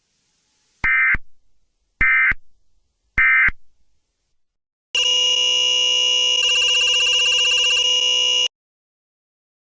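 Emergency Alert System end-of-message data bursts: three short digital bursts about a second apart, the signal that closes an alert. About five seconds in, a loud buzzing multi-tone sound holds for about three and a half seconds, changing its tone twice, then cuts off suddenly.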